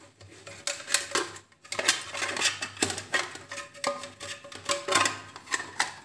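Clicks, knocks and scraping of hard plastic as a surface-mount electrical switch box and its switch plate are handled and pushed together on a cutting mat, with wire being tucked in. The clicks come irregularly, several a second at their busiest.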